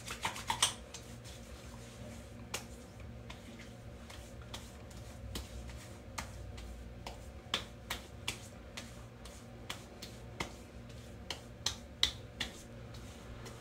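Hands patting aftershave onto freshly shaved face and neck: soft, irregular slaps of fingertips on skin, with a small cluster of them just at the start.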